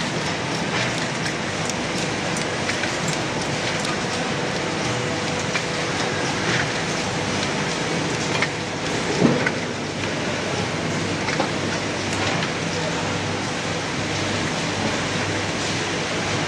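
Ice cream sandwich production line running: a steady dense machinery din with frequent short clicks and knocks from the mechanisms, and one louder knock about nine seconds in.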